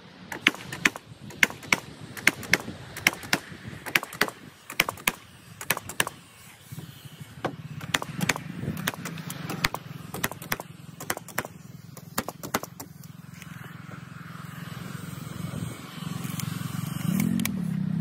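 Nail gun firing nails through rough-sawn roof boards into the rafters: a quick run of sharp shots, a couple a second, thinning out after about twelve seconds. A low hum rises in the last few seconds.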